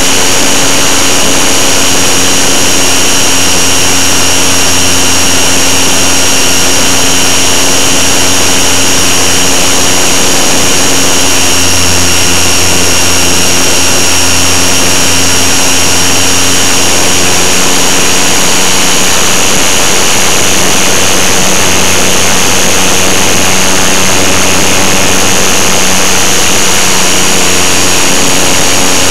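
Electric motor and propeller of a GWS Beaver foam RC model plane, heard loud and close from a camera mounted on the plane: a steady high whine over a constant rush of air, holding the same pitch throughout the flight.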